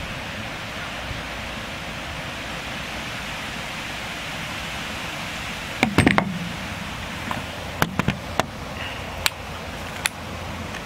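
Steady hiss, then about six seconds in a quick clatter of sharp metallic clicks, followed by a few single clicks: a Lahti M40 pistol being handled and worked by hand.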